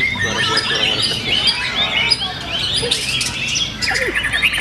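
Several songbirds chirping and trilling at once, a dense run of short, overlapping calls with no pause.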